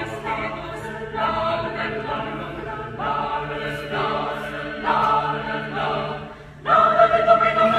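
Mixed-voice choir singing a cappella in held chords. The sound fades briefly about six and a half seconds in, then the choir comes in again louder.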